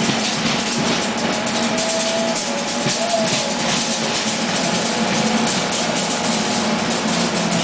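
Amtrak Amfleet passenger coaches rolling past at low speed as the train pulls out: steady wheel-on-rail rumble with rapid clicking and clatter from the trucks and rail joints, and a faint wavering whine about two seconds in.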